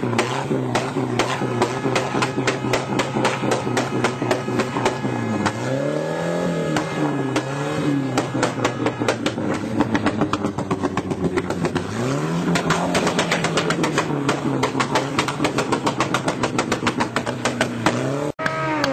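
Motorcycle engine revved hard and held at high revs, with rapid crackling throughout. The pitch swoops up and down a few times about six seconds in, then climbs again about twelve seconds in.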